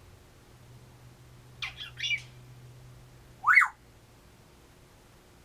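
African grey parrot calling: a few short, noisy sounds about a second and a half in, then a single short, loud squawk about three and a half seconds in.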